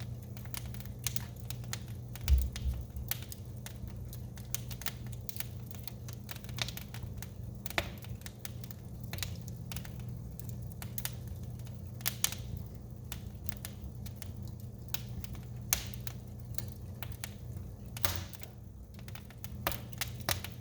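Wood fire crackling in a fireplace: irregular sharp pops and snaps, some louder than others, over a steady low hum. A low thump about two seconds in is the loudest sound.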